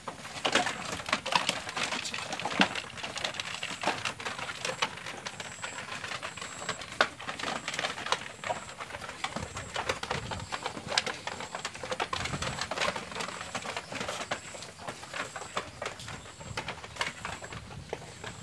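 Sheep hooves clattering and shuffling on a slatted wooden pen floor: many irregular knocks and taps as the animals move about.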